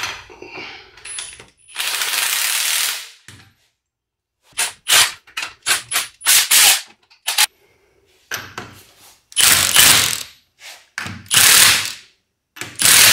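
Cordless impact wrench run in repeated bursts, some short and some over a second long, driving the threaded rods of a pair of coil spring compressors to compress a car's front strut spring.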